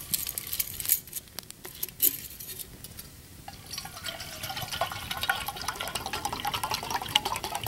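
A few sharp metal clinks from handling a stainless steel military canteen and its nesting cup, then, from a few seconds in, water poured steadily from the canteen into the stainless steel cup.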